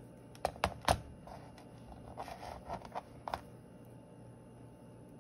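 Hands handling fine steel leader wire and small metal crimp sleeves on a tabletop: three sharp clicks in the first second, then a couple of seconds of light scratching and rustling.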